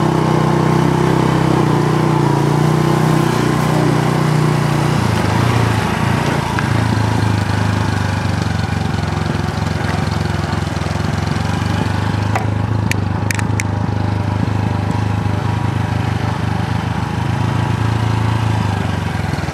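Motor scooter engine running as it is ridden; its pitch drops about five seconds in and then holds steady. A few sharp clicks come about two-thirds of the way through.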